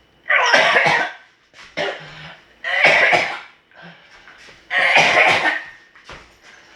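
Three loud, harsh coughs, about two seconds apart, each lasting under a second.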